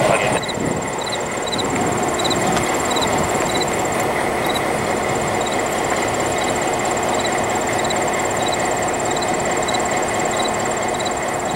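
EMD GP9 diesel locomotive, a 16-cylinder two-stroke, idling at a standstill with a steady engine rumble. A faint high chirp repeats about twice a second over it.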